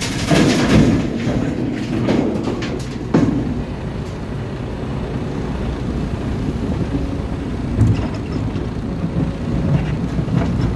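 SANY 335 excavator's diesel engine running steadily as it digs soil and rock beside a dump truck. Heavy clattering thuds of earth and rock about half a second in, with further single knocks around two, three and eight seconds in.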